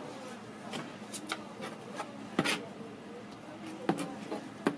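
Metal spatula scraping and spreading fish cake paste over a slice of bread on a cutting board: a string of short scrapes and taps, the strongest about halfway through.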